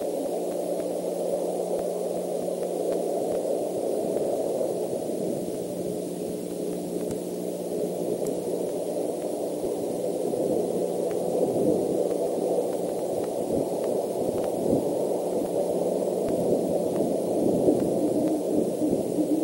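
Steady hiss and rushing noise from an outdoor nest-camera microphone, with a low steady hum and a few faint ticks; no clear owl call stands out.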